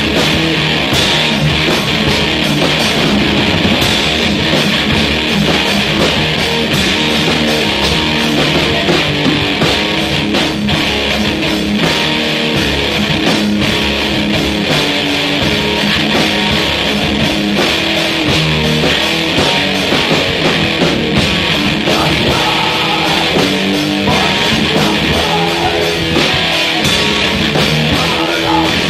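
Heavy rock music track led by guitar, playing loud and steady.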